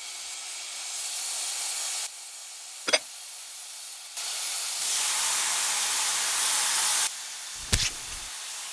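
Steady sizzling hiss of food frying in a pan, stepping up and down in loudness a few times. A short sharp click about three seconds in, and a dull thump near the end.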